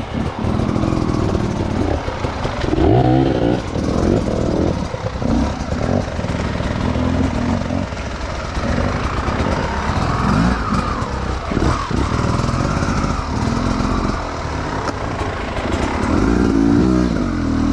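Beta enduro motorcycle engine revving up and down in short bursts while riding slowly over rocks and logs.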